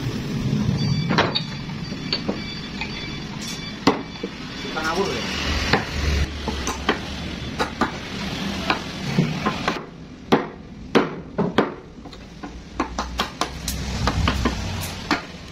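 Hammer striking a wood chisel cut into a timber slab, giving irregular sharp knocks that come in quick runs, loudest and closest together about ten seconds in.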